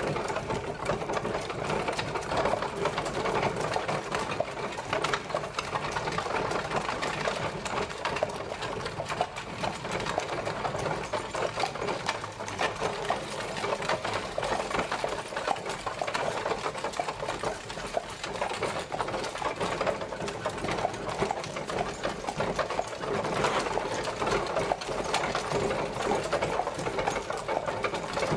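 Horse-drawn carriage on the move: a steady, dense, fast rattle and clatter of the wheels and coachwork.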